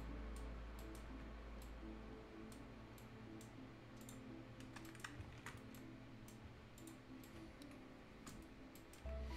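Irregular clicks of a computer mouse and keyboard, with quiet background music underneath.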